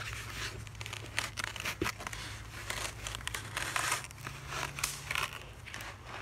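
Foam pool noodle being pressed and slid along the top edge of a wooden board: irregular squeaky rubbing and crinkling of the foam against the wood.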